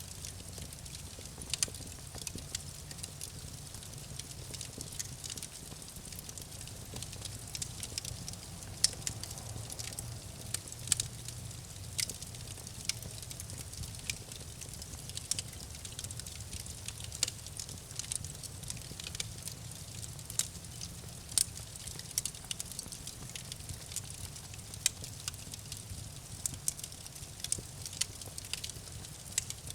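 Campfire burning steadily with a low rumble of flame, and wood crackling and popping in sharp, irregular snaps several times a second.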